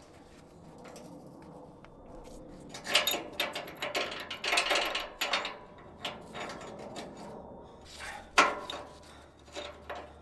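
Metal hand-tool clinks and scrapes as a crow's foot wrench is worked onto a truck's outlet NOx sensor, in a cluster about three to five seconds in and one sharp clink about eight seconds in. The crow's foot does not fit well here, because a lip around the sensor gets in its way.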